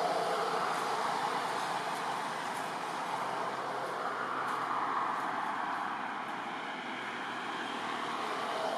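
Steady rushing background noise, swelling a little at the start and again around the middle, without any distinct calls or knocks.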